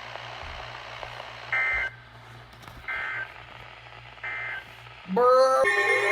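Three short two-tone data bursts from a NOAA Weather Radio receiver, each about a third of a second and spaced about a second and a half apart: the EAS end-of-message code closing the severe thunderstorm watch, over a steady hum and radio hiss. About five seconds in, a loud tone slides upward and opens into a loud sustained alarm-like chord of several tones.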